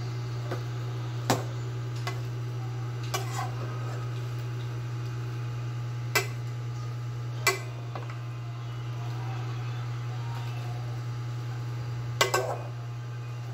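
Metal ladle knocking against the rim and side of an aluminium cooking pot while stirring cabbage in broth: a handful of sharp clinks spread out, with a quick cluster near the end, over a steady low hum.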